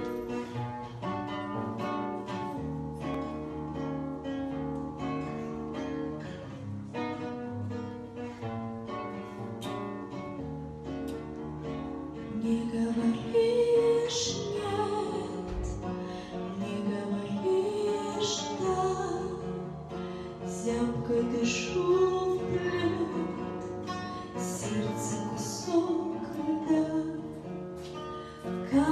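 A plucked-string instrumental introduction, likely guitar, with many separate notes. About twelve seconds in, a woman starts singing a slow song into a microphone, and the plucked accompaniment continues under her voice.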